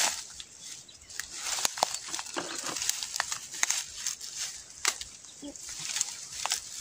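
Dry bamboo branches and leaves rustling as a person pushes through a bamboo clump, with scattered sharp snaps and clicks of twigs and stems throughout.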